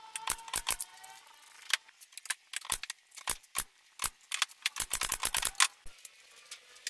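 A string of sharp, irregular clicks and knocks, bunching into a quick run about five seconds in.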